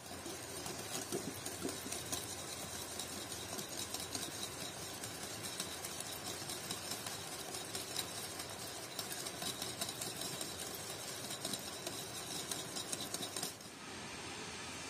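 Eggs being beaten by hand in a ceramic bowl: the metal utensil clicks quickly and steadily against the bowl, then stops about a second before the end, leaving a steady hiss.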